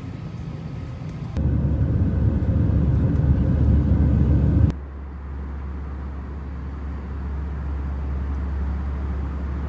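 Jet airliner engine noise heard from inside the cabin. A low steady hum gives way, about a second and a half in, to a louder rumble of the engines at climb power. That stops suddenly around five seconds in and is replaced by a steady, lower cabin drone.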